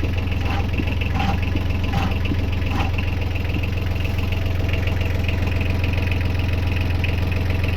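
Boat's inboard engine idling steadily with a low hum. A light, regular tick comes about every three quarters of a second in the first few seconds.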